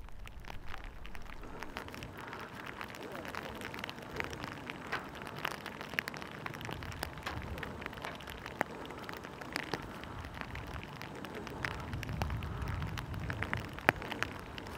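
Steady rain, with many small sharp drop hits over a soft hiss, and gusts of wind rumbling on the microphone that grow stronger near the end.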